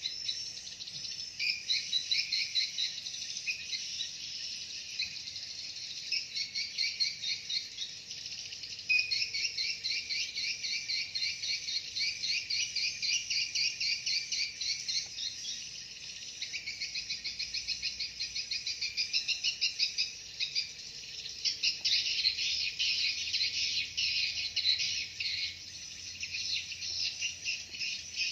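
Swiftlet roosting call (suara inap): dense, unbroken trains of rapid high-pitched chirps and trills, the call used in swiftlet houses to keep young swiftlets returning.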